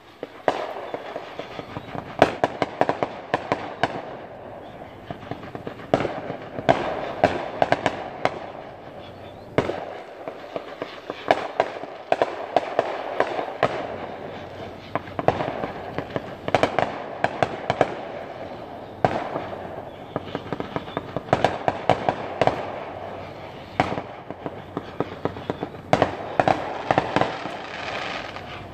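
Fireworks display going off in rapid volleys of sharp cracks and bangs, with a crackling haze between them.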